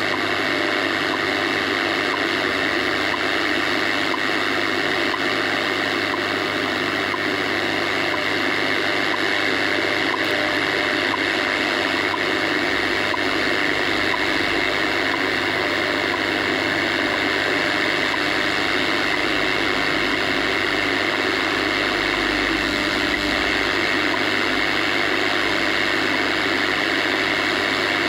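Steady shortwave static and hiss from a National Panasonic 4-band radio-cassette receiver tuned to 15 MHz, the time-signal frequency, with a thin steady whistle running through the noise.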